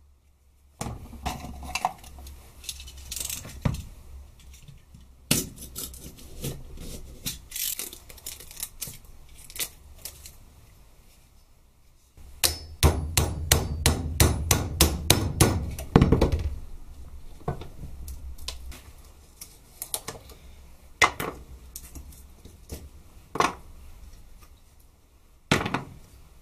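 Hammer striking a metal punch against an old cleaver clamped in a bench vise, knocking off its old handle. Scattered single knocks, then a quick even run of blows, about four a second, in the middle, then a few more single strikes.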